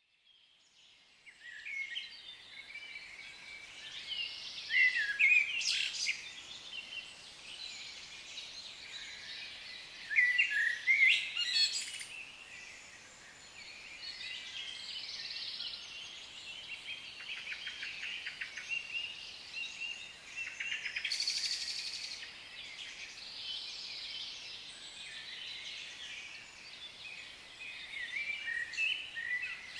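Tropical forest ambience: many birds chirping and calling over a steady background hiss. It fades in at the start, with louder bursts of calls about five, ten and twenty seconds in.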